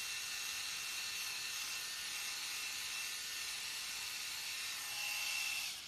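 Rozia HB6001 rechargeable epilator-shaver's small electric motor running steadily with a high-pitched whine as its cutter head is moved over forearm hair. It cuts off abruptly near the end as the unit is switched off.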